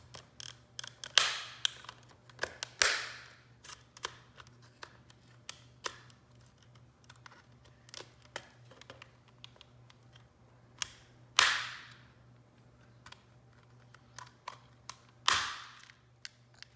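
Small flathead screwdriver prying around the edges of an HP 17BII calculator's plastic case: scattered small clicks and scrapes, with four loud snaps as the case halves pop apart.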